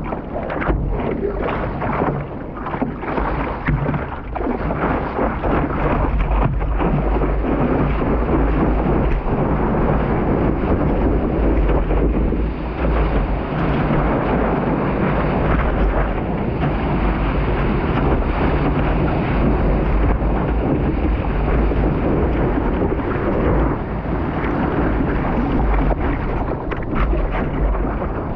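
Wind rumbling on the microphone of a camera mounted on the nose of a stand-up paddleboard, over water rushing and splashing against the board. Uneven splashes come through in the first few seconds, then a steadier rush.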